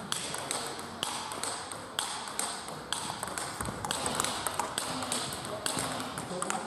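Table tennis rally: the plastic ball clicking sharply off rubber-covered bats and the table, about two or three hits a second. More ball strikes come from a neighbouring table, echoing in a large sports hall.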